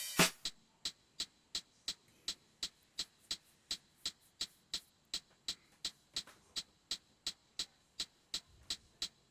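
A solo hi-hat loop from a neo soul sample pack playing a steady pattern of about three light hits a second. It is played loose, with no quantizing.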